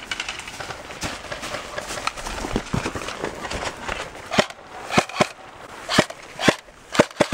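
Rustling footsteps through dry pine needles and brush. Then, from about four seconds in, an airsoft rifle fires single shots: about seven short, sharp cracks, roughly half a second apart.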